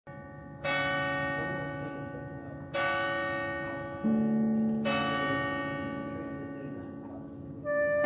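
Church bells ringing: four strokes, each ringing on and slowly fading. One stroke, about four seconds in, comes from a deeper bell. Just before the end more bells start striking in quicker succession.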